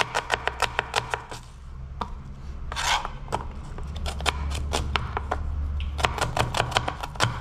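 Kitchen knife chopping a red onion on a plastic cutting board: quick, sharp knocks of the blade on the board, pausing briefly in the first half, with a short rustle about three seconds in.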